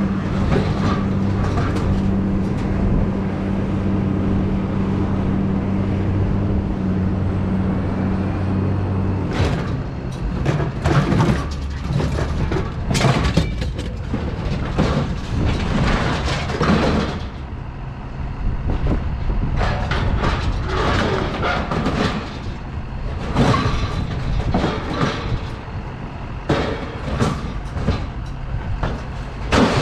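A vehicle engine's steady hum that cuts off about nine seconds in, followed by a long run of irregular knocks and clattering.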